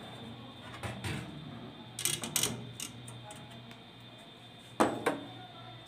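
Metal muffin tray scraping and clanking against a toaster oven's wire rack as the baked tray is pulled out. There are sharp clanks about one and two seconds in and a loudest pair of clanks near the end, over a steady low hum.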